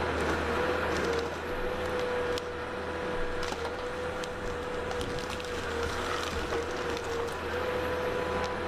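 An engine-driven machine running steadily with a constant hum, and a few light cracks or clicks of wood.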